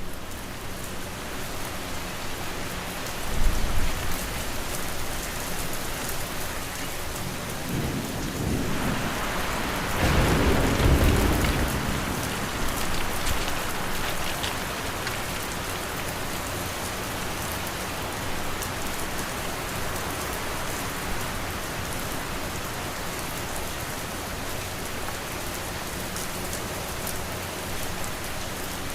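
Steady rain ambience blended with fan and wind noise. A low rumble of thunder swells briefly about three and a half seconds in, and a longer, louder roll comes around ten seconds in.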